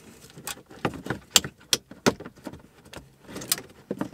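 Irregular sharp plastic clicks, knocks and rattles of wiring harness connectors and the radio's mounting bracket being pushed around in the dash opening, several in the first half and another cluster near the end.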